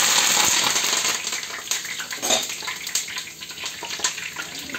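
Fresh curry leaves sizzling and sputtering in hot oil in a kadai. The hiss is loudest in the first second and a half, then eases into a softer sizzle with scattered sharp pops.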